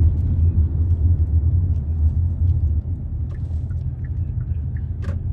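Low, steady rumble of a car being driven, heard from inside the cabin, with a few faint ticks.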